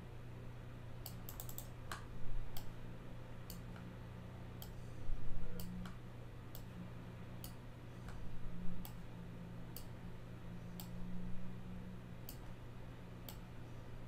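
Scattered single clicks of a computer mouse, roughly one a second with a quick run of several about a second and a half in, over a steady low electrical hum.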